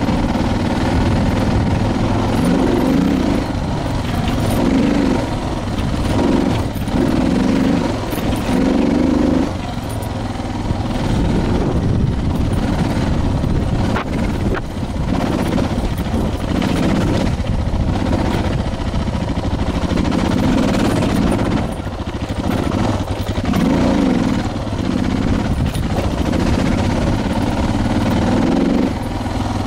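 Suzuki DR650's single-cylinder four-stroke engine running under load off-road, its note swelling and dropping as the throttle is opened and rolled off every second or two, with a few short lulls.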